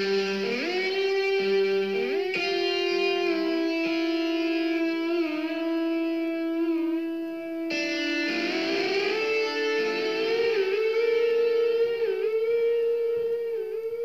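Instrumental music that enters suddenly: a lead line of long held notes that slide and bend in pitch over a sustained lower note, with a fresh phrase beginning about eight seconds in.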